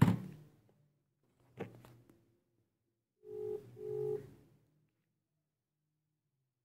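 Mobile phone ringback tone from an outgoing call, heard through the phone's speaker: two short steady beeps per ring, about halfway through. A sharp knock at the start and a softer one a second and a half later come from the phone being handled.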